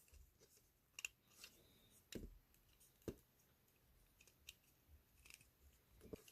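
Faint, irregular small clicks and taps from handling small diecast model parts by hand, about half a dozen spread over a few seconds.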